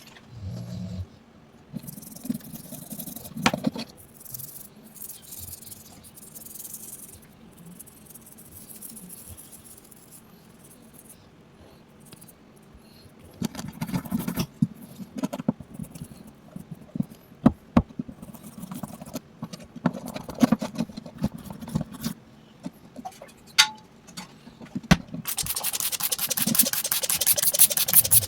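Handling noise from cleaning a small toy: scattered clicks, taps and light scraping, then near the end a fast, steady scratching and rubbing, as of scrubbing or scraping its surface.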